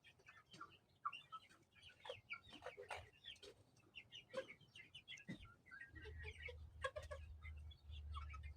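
Chickens clucking softly, a run of many short scattered calls. A low hum joins in about six seconds in.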